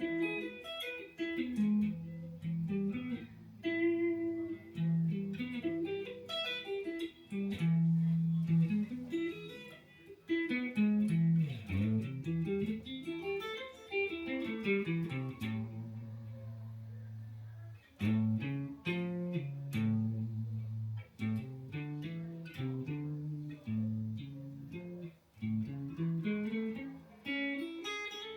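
Guitar practice: single picked notes running up and down in scale-like patterns, with a few longer held low notes in the middle.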